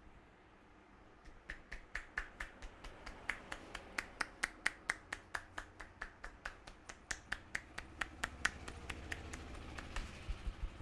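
A barber's hands making a fast, even run of sharp clicks during a head massage, beginning about a second in; near the end, soft dull thuds join the clicks.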